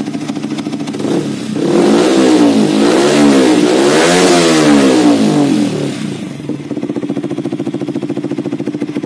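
Yamaha R15 V3's single-cylinder engine through an R9 Misano aftermarket racing exhaust, idling, then revved up and down in several quick blips for about four seconds before settling back to idle.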